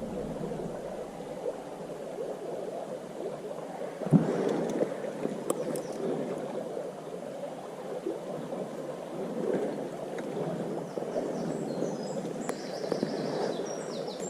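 Shallow stream water babbling and gurgling steadily, with a single knock about four seconds in and small birds chirping near the end.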